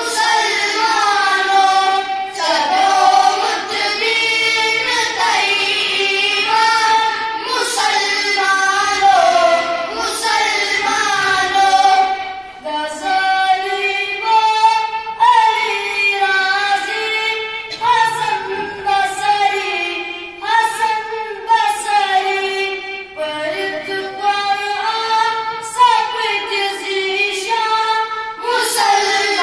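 Boys' voices singing a devotional nazm, a melodic line with short pauses between phrases.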